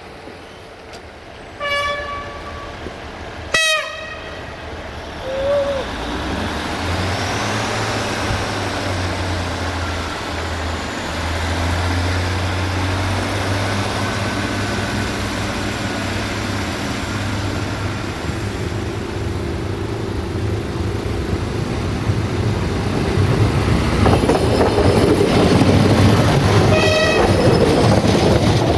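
Two short diesel-railcar horn toots, then diesel multiple units' engines running with a steady low hum as the noise builds. Near the end a Siemens Desiro diesel multiple unit passes close by with loud wheel and engine noise and gives another short horn toot.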